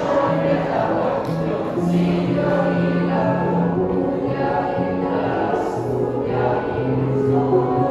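A choir of children and teenagers singing together in long held notes.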